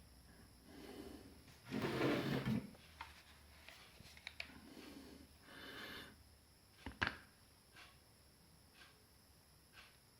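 Handling noises: two short scraping, rustling sounds, the first the louder, and a few sharp clicks and knocks.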